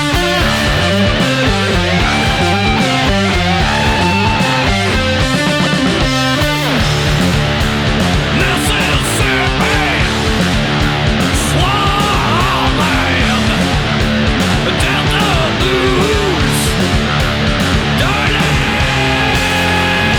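Stoner rock band recording: distorted electric guitars, bass guitar and drums playing at a steady, loud level, with pitch-bending guitar lines over a driving beat.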